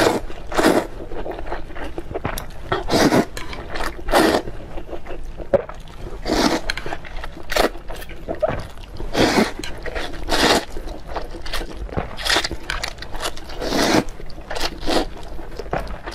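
Close-miked eating: bites, chewing and slurping in irregular sharp bursts every second or so.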